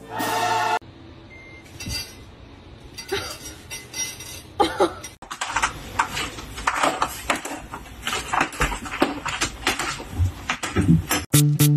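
Rapid clattering and clinking of small hard objects, growing dense from about halfway through. A short pitched sound opens it, and music comes in near the end.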